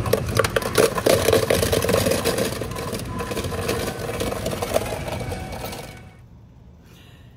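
Fountain ice dispenser dropping ice into a large foam cup: a continuous clatter of ice pieces hitting the cup, which stops abruptly about six seconds in.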